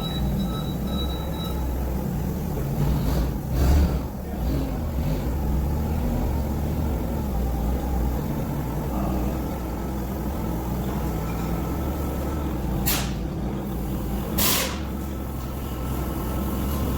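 A heavy vehicle's engine running steadily with a low rumble. Three short bursts of air hiss cut in, two of them close together near the end.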